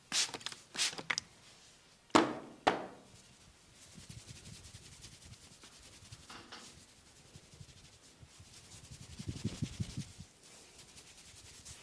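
Massage on bare skin: several sharp smacks of hands on skin in the first three seconds, the loudest about two seconds in. Then hands rub over the skin with a fine rustling, and a quick run of soft thumps comes around nine to ten seconds.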